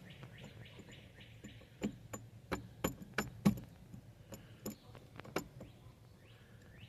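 Irregular sharp clicks and taps of metal on metal as a new ignition lock cylinder and its key are worked into a 1990 Ford Ranger's steering column, about nine clicks across a few seconds in the middle.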